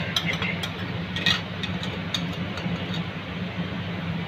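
A metal spoon scraping ghee out of a china bowl into an aluminium kadai, with a few light clinks near the start, about a second in and about two seconds in, over a steady low hum.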